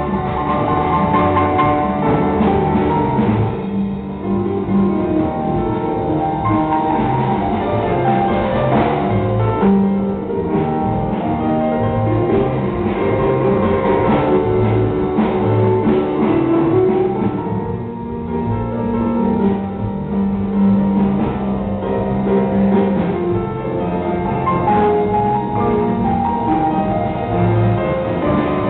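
A school big band playing live: saxophones and piano in a full ensemble sound, with moving melody lines over regular low notes.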